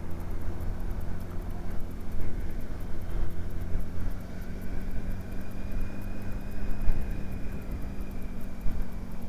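Honda Hornet 900's inline-four engine running at steady, moderate revs while riding, with wind and road noise.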